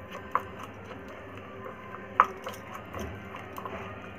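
A spoon stirring thick masala paste in a glass bowl: soft scraping with a few scattered light clinks against the glass, the sharpest about two seconds in.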